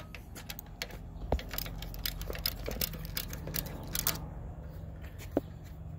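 Socket ratchet clicking in uneven runs while a half-inch nut on an AC line fitting at the condenser is turned loose, stopping about four seconds in.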